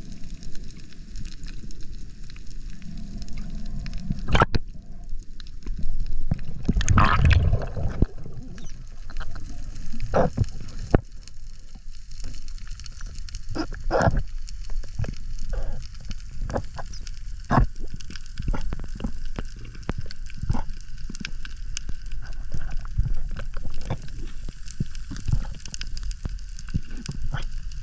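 Underwater sound picked up by a diving camera: scattered sharp clicks and crackling, with a louder burst of bubbling and rumble about seven seconds in.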